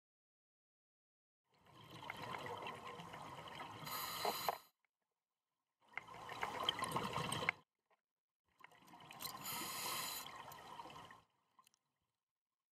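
Scuba diver breathing through a regulator underwater: three breaths, each a few seconds of hiss and bubbling exhaust, with silence between them.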